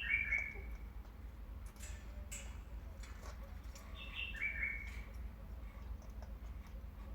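African grey parrot giving a short whistled call that steps down in pitch, once at the start and again about four seconds in, with a few faint clicks between the calls.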